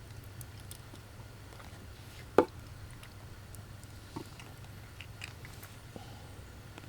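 Quiet handling noise: one sharp click about two and a half seconds in and a few fainter ticks later, over a steady low hum.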